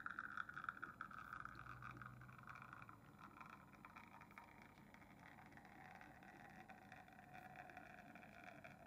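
Near silence: a faint steady hiss whose pitch drifts slowly lower.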